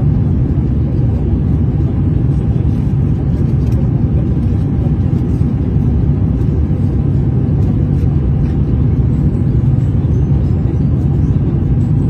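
Steady low cabin rumble of an aircraft on its landing approach: engine and airflow noise heard from a passenger seat.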